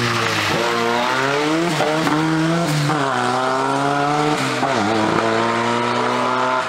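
Ford Sierra RS Cosworth rally car's turbocharged four-cylinder engine accelerating hard out of a hairpin. The pitch rises through each gear and drops back at every upshift, about three times.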